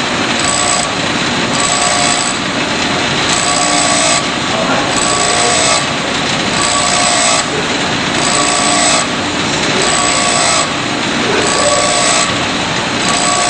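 Grinding wheel grinding a steel screwdriver blade flat. The tone changes back and forth in a regular cycle about once a second as the blade is worked against the wheel.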